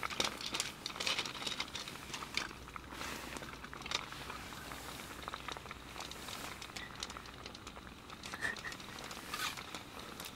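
Quiet eating sounds: soft rustling of clothing and scattered small clicks and taps of chopsticks and tableware.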